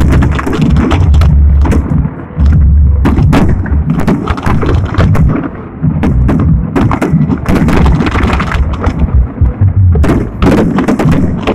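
Fireworks going off in rapid succession: many sharp, loud bangs, one after another, over a continuous low rumble.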